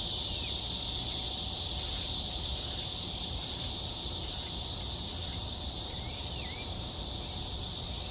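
Cicadas shrilling in a dense, steady high-pitched chorus. A bird's faint short calls, falling in pitch, come in at the start and again about six seconds in.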